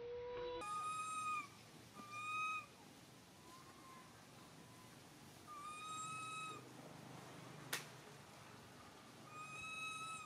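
High, even-pitched coo calls of a young long-tailed macaque, repeated four times, each about half a second to a second long, with a shorter, lower call right at the start. A single sharp click comes a little after the third call.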